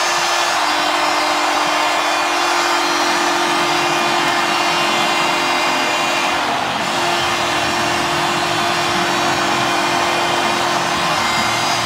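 A packed hockey arena crowd cheering steadily and loudly after a game-tying goal, with a steady low tone sounding beneath the noise. The cheering dips briefly about six and a half seconds in.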